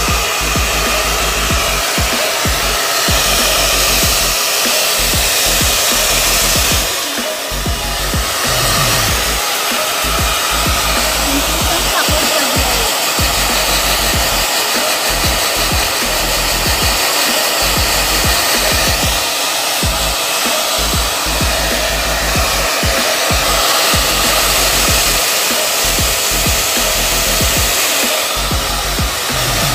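Handheld electric hair dryer blowing steadily at close range over a wet long-haired cat's fur. Its level dips briefly about seven seconds in.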